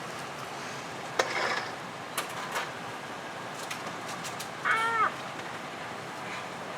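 Steady hum inside a waiting car's cabin, with a few light clicks and a short high-pitched squeal that rises and falls about five seconds in.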